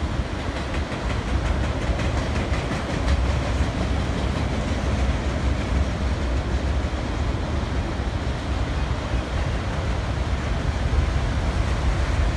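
Freight train of autorack cars rolling past: a steady rumble of steel wheels on the rails, with no break.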